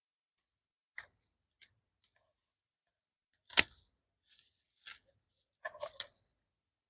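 Lettuce leaves being cut off with a small blade: a few short, crisp snips and crunches. The loudest comes about three and a half seconds in, and a quick cluster of three follows near the end.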